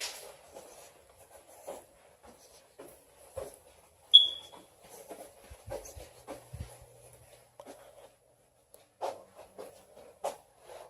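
Footsteps and small knocks on a hard floor at an irregular walking pace, with one short, high-pitched chirp about four seconds in.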